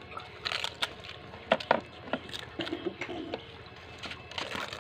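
Scattered crunches, clicks and small wet sounds of two people hurriedly cracking phuchka (pani puri) shells, dipping them in a steel bowl of water and eating them; two sharp clicks about a second and a half in are the loudest.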